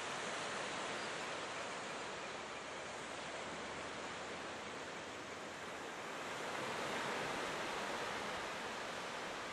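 Small waves breaking and washing up a sandy beach: a steady surf hiss that swells a little about seven seconds in.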